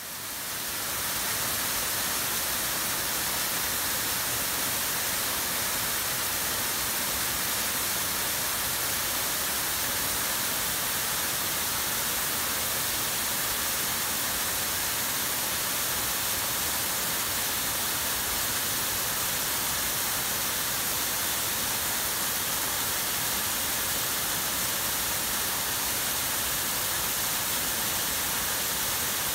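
Steady rushing and splashing of a tall waterfall streaming down a mossy rock face, fading in over the first second.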